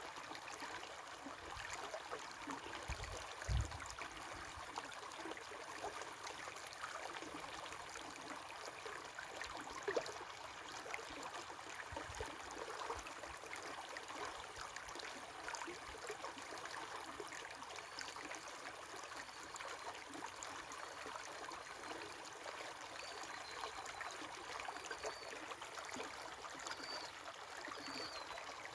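River water flowing steadily, with faint high bird chirps in the last third. A low thump sounds about three seconds in, and a sharp click about ten seconds in.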